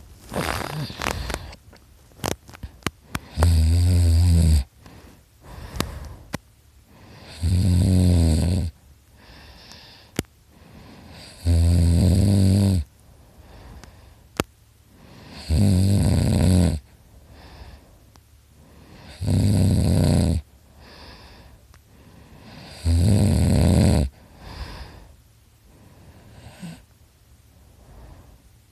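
A sleeping man snoring loudly: six heavy snores, each about a second long, coming about every four seconds, with softer breaths out between them.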